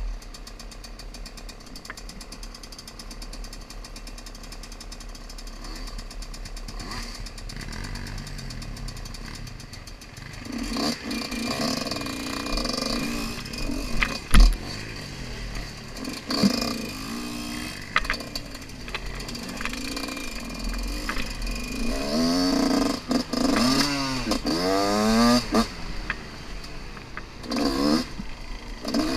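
Dirt bike engine heard from the rider's helmet camera: running low and steady for about the first ten seconds, then pulling away with the revs rising and falling again and again. A single sharp knock sounds about fourteen seconds in.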